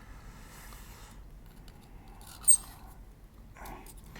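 An M.2 NVMe SSD in its carrier scraping and rubbing as it is forced into a tight-fitting external SSD enclosure, with one sharp, high click-squeak about two and a half seconds in.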